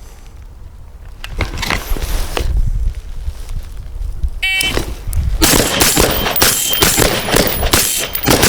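A shot timer's short electronic start beep about four and a half seconds in, then a rapid string of suppressed rifle shots from a 14.5-inch AR-15 carbine fitted with a HUXWRX Flow 5.56 suppressor.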